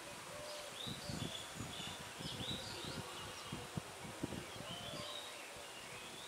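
Faint outdoor ambience: scattered short high chirps over irregular low thuds, with no clear sound from the approaching train.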